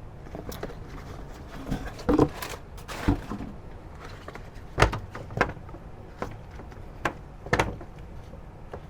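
Irregular sharp knocks and clacks with some rustling, about ten in all: parts and their packaging being handled as a set of drive belts is pulled out.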